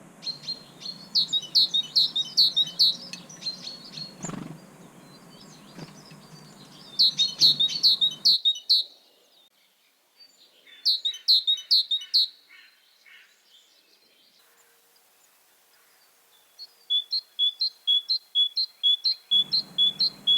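Small songbirds chirping in three quick bursts of high notes, then a steady repeated two-note song of about three phrases a second near the end.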